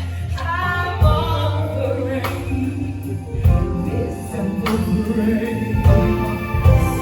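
A band playing a song with singing: sustained bass notes under a gliding vocal line, with sharp drum hits every second or two.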